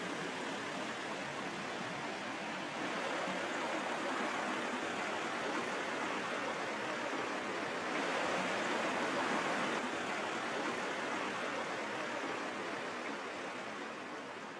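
Rocky mountain trout stream rushing and splashing over stones in a steady rush of water. It grows a little louder about three seconds in and again around eight seconds, then begins to fade near the end.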